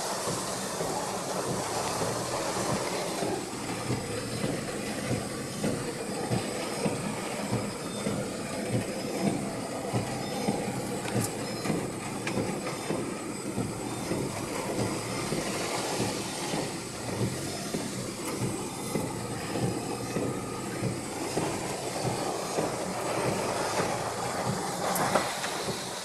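Strong typhoon wind rushing through apple trees, a continuous roar that swells and eases in quick gusts, with leaves and branches thrashing.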